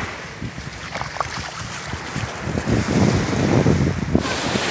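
Wind buffeting the microphone over the wash of surf on a sandy beach, the gusts strongest in the second half.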